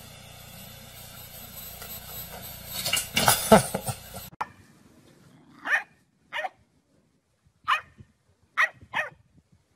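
A loud burst of noise about three and a half seconds in, then a bulldog barking five short, separate times.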